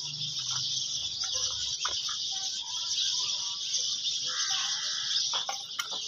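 Steady high-pitched insect chorus shrilling without a break, with a few faint bird calls about four seconds in and some light ticks near the end.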